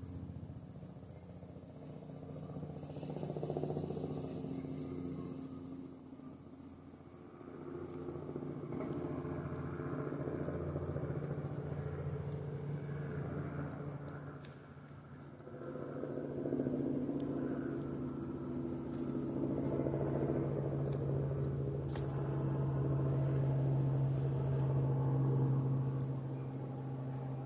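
A motor engine's low, steady hum that grows and fades in loudness several times and is loudest near the end.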